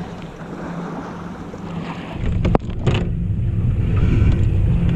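Fishing boat's engine humming low and steady, with wind buffeting the microphone that grows louder from about halfway through. A single sharp click about halfway through.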